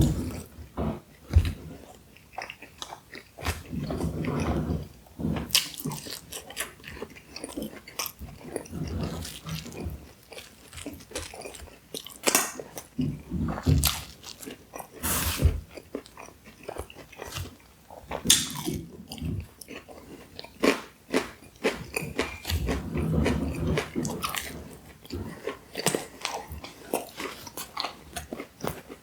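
Close-miked eating: irregular bites and chewing, with crunchy snaps and wet mouth sounds, as one person works through takeout pizza-box food.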